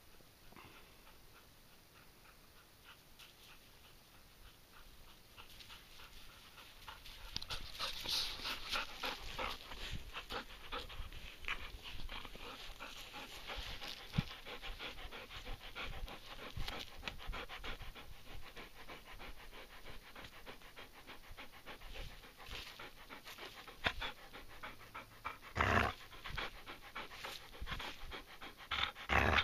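A dog panting fast and hard while tugging on a toy on a rope. The panting starts after several quiet seconds, with a couple of louder knocks near the end.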